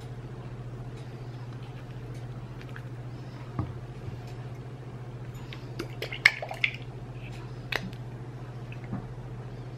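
Tableware handling: a soft knock as a plate is set down on the table, then a few sharp clicks and taps as a bottle of hot sauce is picked up and handled, the loudest a click a little after halfway, over a steady low hum.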